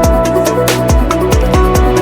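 Electronic background music with a steady kick-drum beat and hi-hats.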